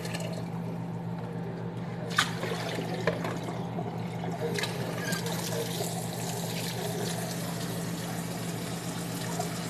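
Tap water pouring into a pressure cooker pot of meat pieces, over a steady low hum. There are two short sharp clicks about two and three seconds in.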